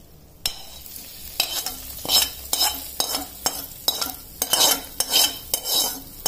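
Hot tempering (tadka) of mustard seeds, urad dal and curry leaves in oil sizzling as it is poured onto curd rice. A metal spoon scrapes the small tempering pan in repeated strokes, about two a second.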